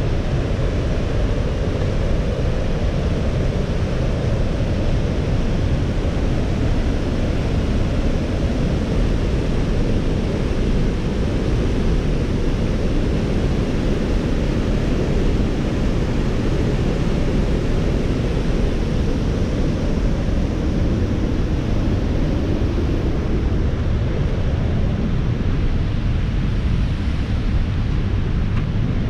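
Steady rushing of water pouring over a low dam spillway and churning into the pool below, a constant deep roar with no breaks.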